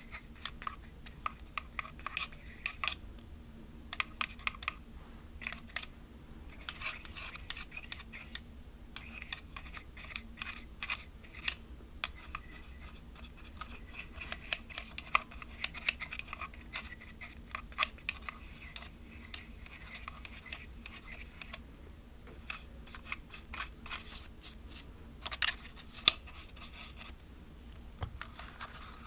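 Dry brush bristles sweeping over the inside of a plastic film camera body in quick scratchy strokes, with many small sharp clicks of the hollow plastic. The strokes come in stretches with short pauses, and there is one sharper click about 26 seconds in.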